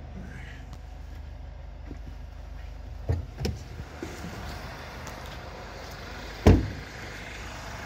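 Isuzu D-Max pickup's diesel engine idling with a steady low hum while the driver gets out of the cab: a couple of knocks about three seconds in, then the door slammed shut about six and a half seconds in.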